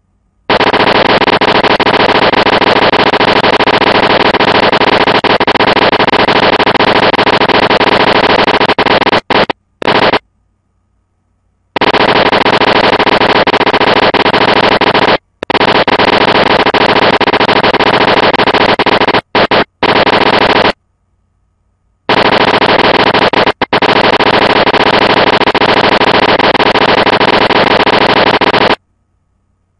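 Loud, harsh, rapid crackling noise in long stretches, breaking off suddenly into silence several times for a second or so each.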